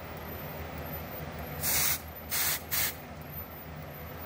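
Aerosol smoke-detector test spray hissing into a smoke detector to set it into alarm. Three short sprays: one about one and a half seconds in, then two quicker ones close together.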